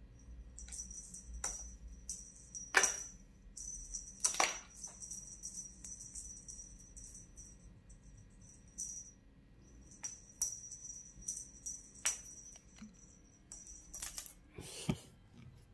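Small jingle bell and beads on a feather wand cat toy jingling in short spells as the wand is waved and jerked, with a few light knocks as the toy hits the floor or the cat bats at it.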